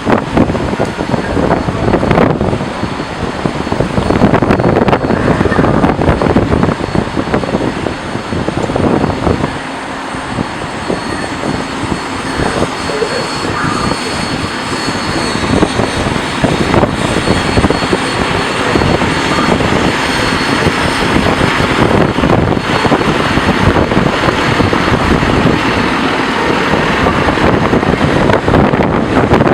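Loud, continuous rushing of strong storm wind buffeting the microphone, rising and falling in gusts.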